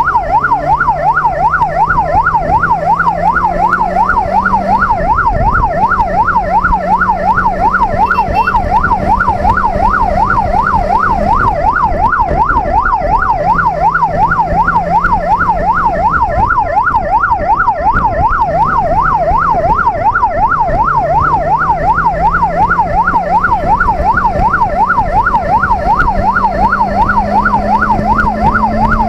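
Electronic police siren on a fast yelp, its pitch sweeping up and down several times a second without a break. Under it, the motorcycle's inline-four engine climbs in pitch through the gears, dropping back at each shift.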